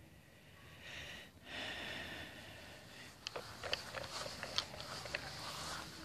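Dog sniffing in the grass close by, with a scattering of light clicks.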